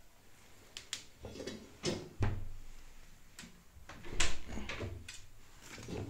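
Handling noise on an opened-up front-loading washing machine: a string of irregular knocks and clunks against its tub and frame, the loudest about two seconds in and again around four seconds in.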